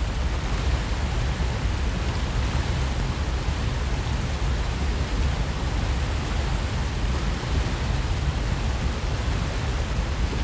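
Wind buffeting the microphone over open water: a steady rushing noise with a heavy low rumble and no distinct events.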